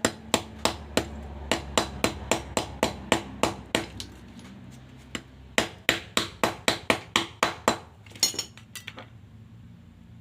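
Rapid hammer blows on the metal gear case of a brush cutter as it is knocked apart. There are two quick runs of strikes, about four to five a second with a short pause between, then a brief metallic clinking near the end.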